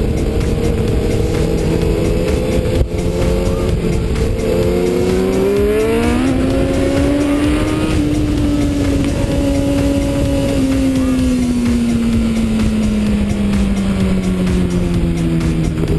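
Sport motorcycle engine under way, over heavy wind rumble on the microphone: it runs steady, revs up quickly about five seconds in, then slowly winds down through the second half.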